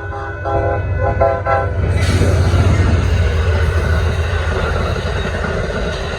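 Diesel locomotive horn sounding several short chord blasts in quick succession, then from about two seconds in a loud rushing noise over a steady low engine rumble as the train passes close by.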